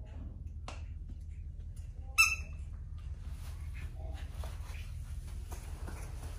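A single short, high-pitched squeak about two seconds in, over a steady low hum, followed by light rustling and handling noises.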